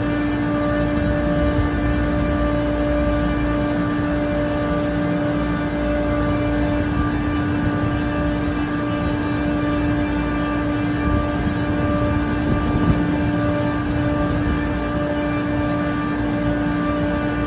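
Trane air-cooled screw chiller running: a steady mechanical drone with a strong, unchanging hum tone and fainter higher tones over a low rumble.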